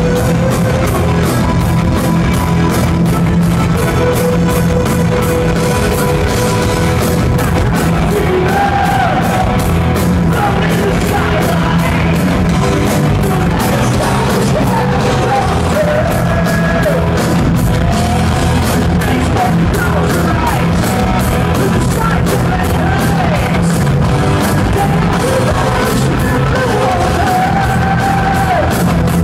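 Live heavy metal band playing loud, with fast, steady drumming under distorted guitars; a male lead voice sings from about eight seconds in.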